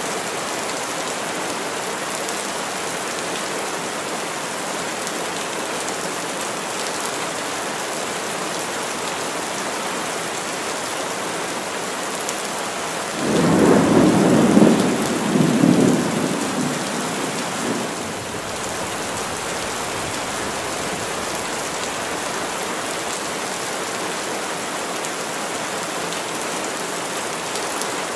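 Heavy rain falling steadily on a forest. About halfway through, thunder rumbles for about five seconds: it comes in suddenly, is the loudest sound here, and dies away.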